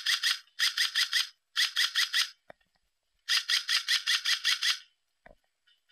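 Airsoft electric gun firing four bursts of rapid full-auto shots, about eight a second, with a pause of about a second before the last and longest burst.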